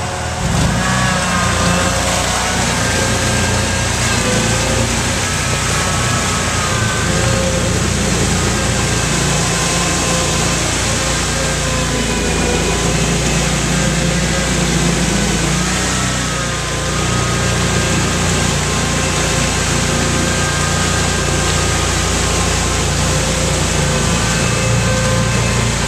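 Mudd-Ox 8x8 amphibious ATV on Adair tracks driving through muddy water, its engine running under load with the revs rising and falling. The engine picks up about half a second in.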